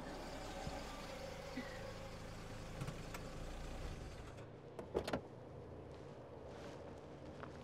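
A car's low, steady engine rumble that stops about four seconds in, followed by a cluster of sharp clicks about five seconds in.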